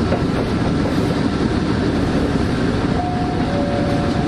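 KiHa E130 diesel railcar running, a steady rumble of engine and wheels on the track. A steady whine joins in about three seconds in.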